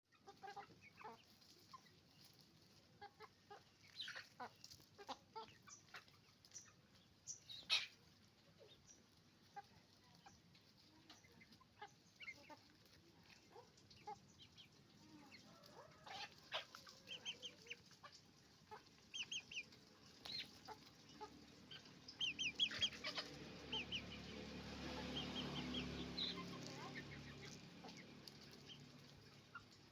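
Chickens on a farm clucking and calling: many short, separate calls, the loudest a sharp one about eight seconds in, with a run of quick high calls in the second half. A low hum swells up about two-thirds of the way through and fades again.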